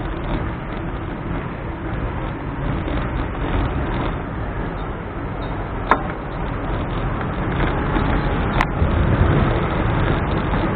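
City street traffic of cars and motorcycles, heard as a steady rumble mixed with road and wind noise from a moving bicycle, getting a little louder toward the end. Two sharp clicks are heard, about six seconds in and again about two seconds later.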